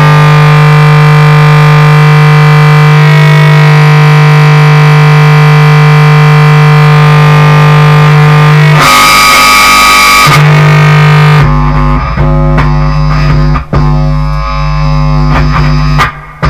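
Bass guitar played through a distortion pedal and a small guitar amp, making noise music: a loud, steady distorted drone. About nine seconds in a shrill, noisy screech cuts in for a second or so. After that the sound turns choppy and stuttering, with a heavy low rumble and sudden dropouts near the end.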